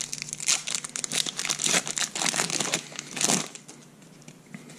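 Foil wrapper of a Pokémon trading-card booster pack crinkling and tearing as it is pulled open by hand. The crinkling stops about three and a half seconds in, leaving only faint rustles.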